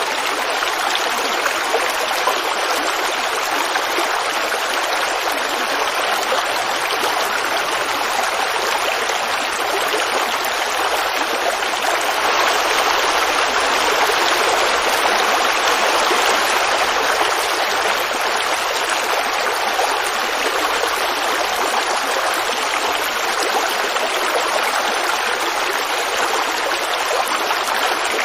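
Woodland creek babbling over rocks: a steady, unbroken rush of running water that swells slightly about halfway through.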